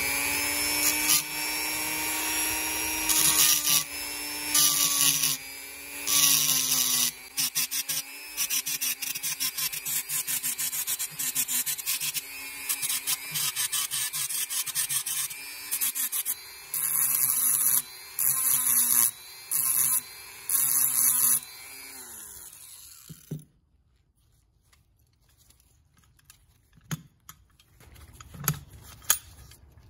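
Rotary tool with a small abrasive point running at a steady high whine, with repeated harsh grinding bursts each time it is pressed against the rough carburetor throttle-body casting to smooth it. The whine winds down and stops a little over twenty seconds in, leaving only a few light clicks near the end.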